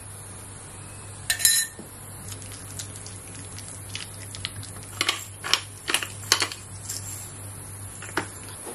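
A silicone spatula mixing egg salad in a glass bowl, scraping and tapping against the glass: a ringing clink about a second and a half in, then a run of sharp clicks and scrapes in the second half. A steady low hum runs underneath.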